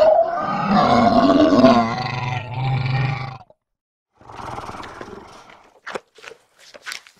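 Dinosaur roar sound effect: a loud pitched roar that rises and then falls, lasting about three and a half seconds, followed after a short gap by a quieter growl. A few short clicks come near the end.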